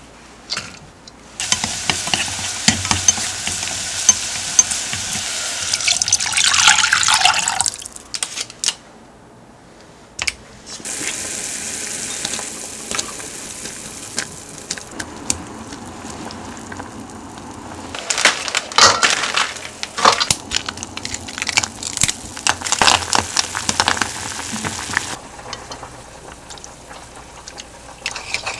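Water running for about six seconds, the sound brightening near the end. After a short pause comes a steady watery hiss at a pot of broth on the hob, with small clinks and splashes as ingredients are dropped in.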